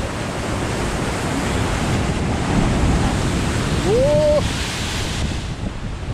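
Rough sea waves surging and breaking over shoreline rocks close by, with wind buffeting the microphone. About four seconds in, a wave crashes up against the rocks and throws spray over the camera.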